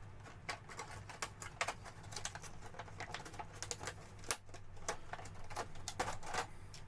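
Hard plastic model-kit parts and packaging being handled: a run of irregular small clicks, taps and rustles over a faint steady low hum.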